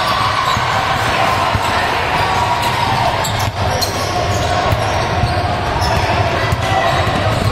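A basketball bouncing on a gym floor during play, over a steady din of players' and spectators' voices, with a sharp impact about three and a half seconds in.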